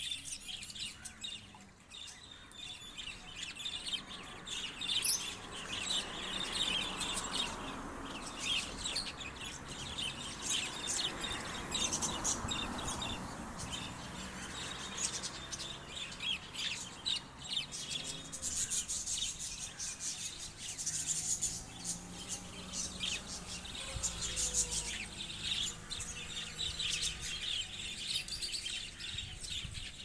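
A flock of budgerigars chattering, many short high chirps overlapping without pause.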